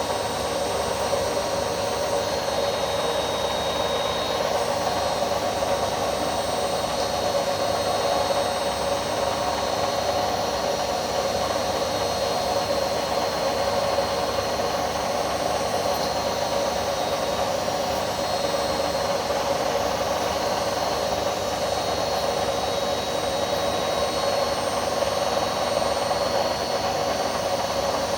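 Indesit My Time washing machine running with its drum turning, a steady noise carrying a few constant whining tones: a sound its owner takes for drum bearings that are just starting to go.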